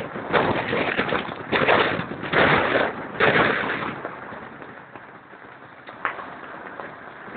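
Storm wind buffeting the microphone in heavy gusts, mixed with breaking waves and spray around a sailboat. The gusts are loudest over the first three seconds or so, then ease.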